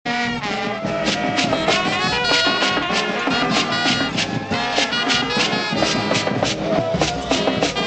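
Brass band music with a steady, quick percussion beat of about three strokes a second.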